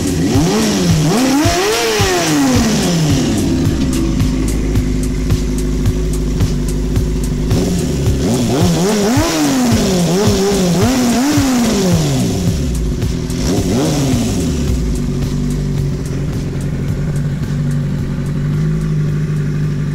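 Kawasaki ZXR400's four-cylinder engine being revved in short blips, rising and falling in pitch three times, and settling back to a steady run in between.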